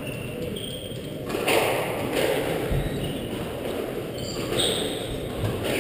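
Echoing noise of a large indoor squash hall, with one dull low thump a little before the middle.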